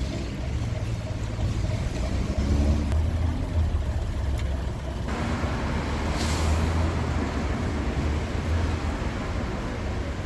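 Boat engine running steadily with a low rumble. About five seconds in, a rushing, hissy noise joins it and the sound grows harsher.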